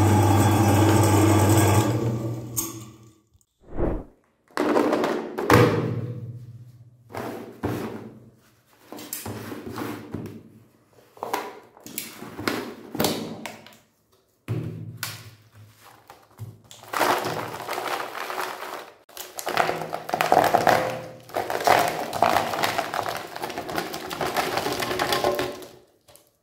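Electric meat grinder motor running steadily, cutting off about two seconds in. After that come many irregular knocks and crinkly rustles as small wrapped chocolate bars are handled and tipped out of a heart-shaped box onto a plastic tray, busiest in the second half.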